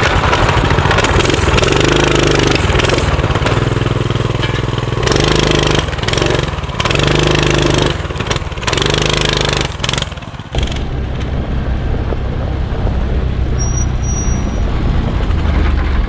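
Mini bike's small single-cylinder gas engine revving up and down again and again under throttle as it is ridden, then running more steadily for the last few seconds.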